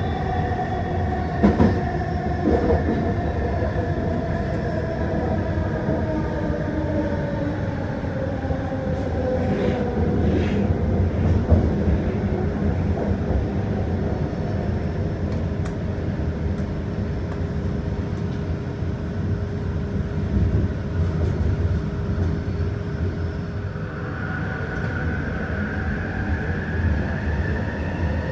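SkyTrain car running on its guideway with a low steady rumble and the whine of its linear induction motors. The whine falls slowly in pitch over the first dozen seconds as the train slows, holds steady, then rises near the end as it picks up speed again. A couple of knocks from the running gear come in the first few seconds.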